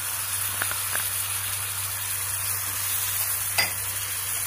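Chopped onions and green capsicum sizzling steadily in a non-stick frying pan with sauce just added. A wooden spatula stirs them, giving a few light knocks against the pan, the sharpest about three and a half seconds in.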